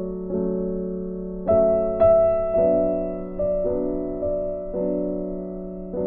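Slow background piano music, with held notes and new notes struck about once or twice a second.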